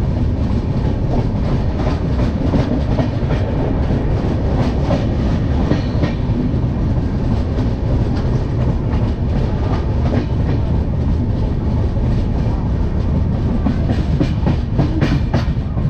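Passenger train running fast, heard from the open doorway of a coach: a steady loud rumble of wheels on the rails, with many sharp clicks and clatters mixed in.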